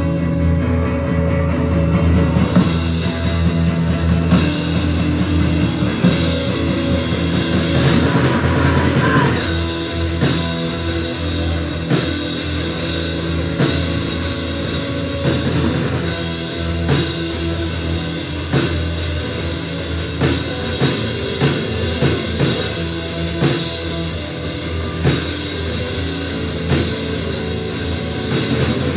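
Live rock music from a drum kit and an amplified guitar playing together, with the drum hits standing out as a steady beat from about ten seconds in.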